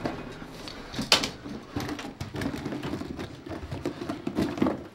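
Bags rustling and bundles of banknotes being handled and dropped in as cash is loaded into bags, with scattered clicks and knocks and one sharp clack about a second in.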